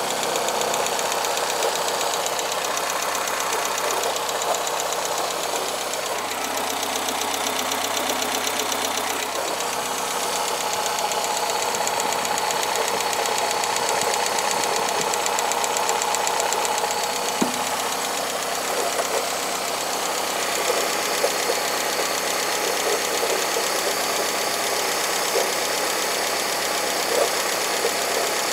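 Car engine running cold with a rapid ticking clatter from inside the engine, on an engine that is also using oil.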